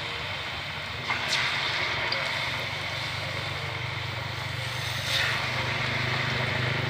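Banana slices deep-frying in hot oil in a wok, a steady sizzle, with a low steady hum underneath.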